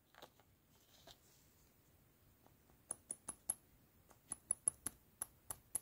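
About a dozen light, sharp plastic clicks as the PCV valve's round plastic cap is handled and pressed onto the valve cover over its membrane and spring, starting about three seconds in, the later ones in quicker runs.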